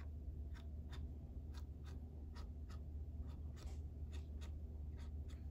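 Light, uneven tapping and scratching, about two to three ticks a second, as the tip of a squeeze bottle of glue is dabbed along the inside of a cardstock box. A steady low hum lies underneath.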